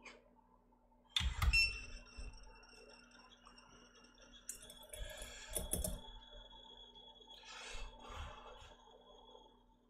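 Small tools knocking and clicking on a workbench. One sharp knock about a second in is followed by a brief ringing tone, and a cluster of clicks comes a few seconds later. Two short hissing puffs come near the end.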